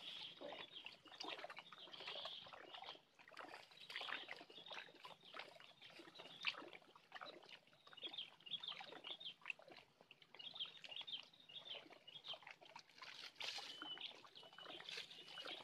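Faint, irregular chirping of small birds, with water lapping softly against the rocky shore.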